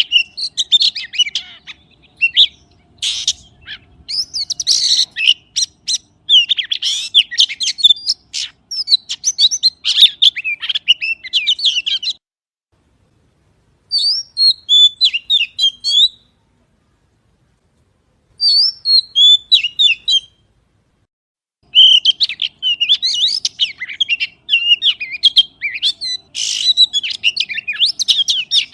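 Magpie calling in long runs of quick chirps and whistled notes. It falls silent three times for a couple of seconds in the middle, then resumes.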